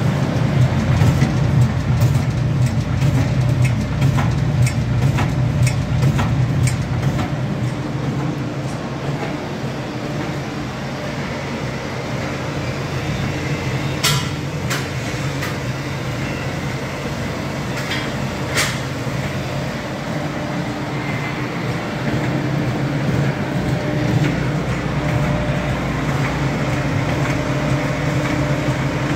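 Steady low machine hum, with scattered light clicks in the first several seconds and a few sharper clicks around the middle.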